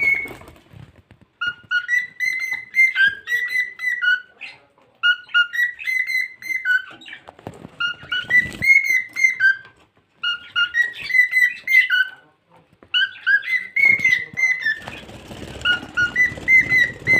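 Pet cockatiel whistling a tune: phrases of clear notes stepping between two or three pitches, repeated in five bursts with short pauses between. A rustling noise sits under the last phrase near the end.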